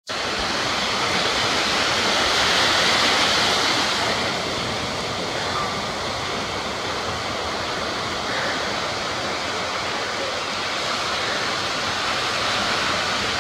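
Ocean surf breaking and washing up the beach: a steady rush of waves, a little louder a few seconds in.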